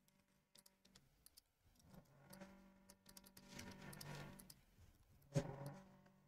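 Near silence: faint room tone, with a brief soft click about five and a half seconds in.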